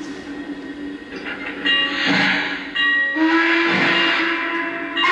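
Lionel Legacy N&W Y6b model steam locomotive's onboard sound system blowing its steam whistle through the model's speaker: a short blast about a second and a half in, then a longer one about three seconds in, each a chord of steady tones with a hiss.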